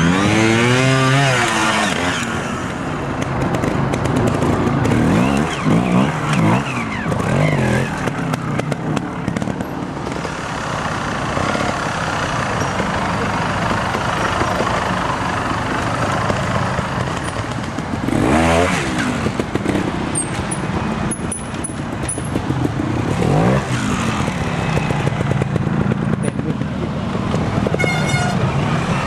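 Trials motorcycle engines running and revving in short, sharp bursts, the pitch sweeping up and falling back as the bikes are blipped and throttled over steep sections; several bikes one after another, with the biggest revs near the start and again about two-thirds of the way through.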